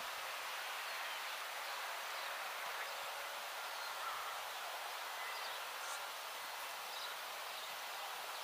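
Steady outdoor background hiss, with a few faint, brief bird chirps scattered through it.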